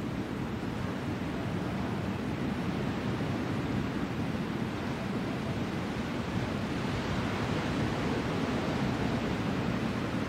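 Steady rushing of ocean surf and wind on the shore, growing a little louder over the last few seconds.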